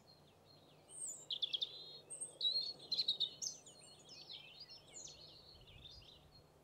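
Alpine accentor calling: a soft run of quick high chips, then a louder burst of varied twittering and trilling notes about a second in, trailing off into softer twitters.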